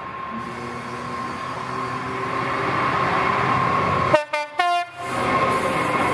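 Class 66 diesel locomotive approaching under power, its running growing steadily louder, then two short blasts on its horn just after four seconds in. After the horn comes the rumble of the locomotive and its car-carrier wagons passing close by.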